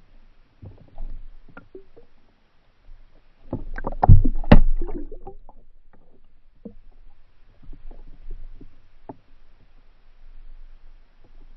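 Underwater sound picked up by an action camera: scattered low knocks and rumbles, with a loud cluster of thuds and clatter about four seconds in.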